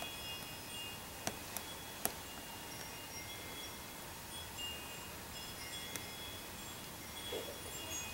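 Chime tones ringing on and off at several high pitches, like wind chimes, with a few sharp clicks, the loudest about a second and two seconds in.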